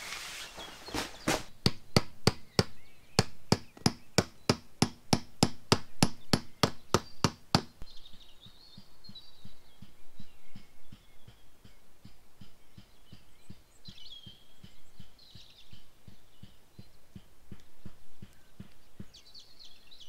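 A quick, even series of sharp clicks or taps, about four a second, stopping just before eight seconds in. Afterwards only faint, scattered high chirps.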